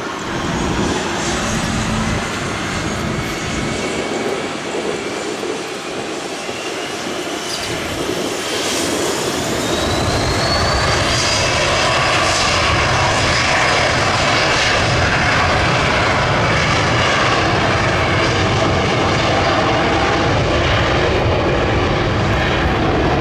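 Hawker 800-series business jet's twin rear-mounted Honeywell TFE731 turbofans spooling up for takeoff with a rising whine. About ten seconds in they reach takeoff thrust, louder and steady, as the jet starts its takeoff roll.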